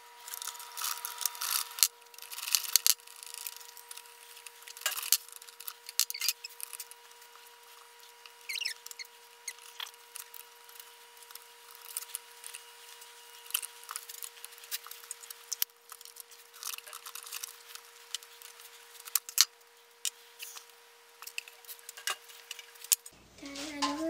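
Quick, irregular clicks, taps and rattles of hand tools and small plastic and metal parts as a Stihl MS170 chainsaw's air filter housing and carburetor are taken off, over a steady high hum.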